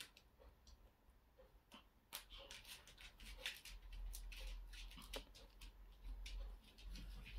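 Faint rustling and small clicks of yarn and crocheted pieces being handled, a yarn needle drawn through the stitches to sew two crocheted eye pieces together. The clicks get busier after about two seconds, over a low hum.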